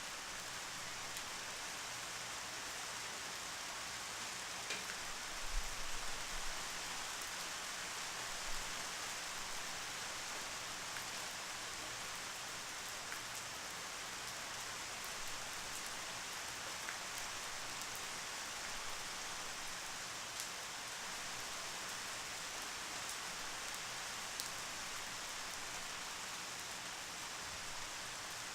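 Steady rain falling, an even hiss with scattered individual drop ticks, and a few brief low thumps about six seconds in.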